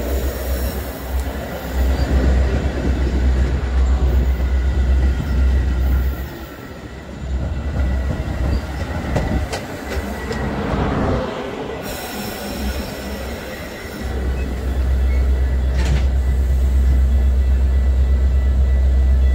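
Stainless-steel bilevel commuter coaches of a Metra train rolling past close by: steady wheel-on-rail noise with a heavy low rumble, a thin steady squeal and occasional clicks. The rumble eases for a few seconds in the middle and swells again near the end.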